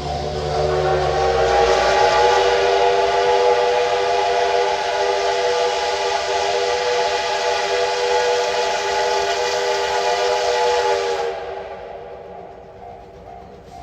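Steam whistle of the D51-class steam locomotive No. 200 blowing one long blast of about eleven seconds, rising slightly in pitch as it opens, then stopping. Near the end the level crossing's pulsing warning bell is heard again.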